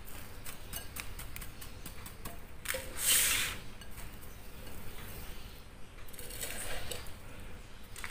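Dry panko breadcrumbs rustling and crackling as a hand presses and turns a chicken fillet in a glass bowl to coat it, with a louder rustle about three seconds in.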